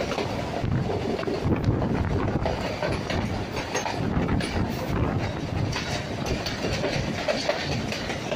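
Passenger train in motion, heard from a carriage window: a steady rumble of the wheels on the track with scattered faint knocks.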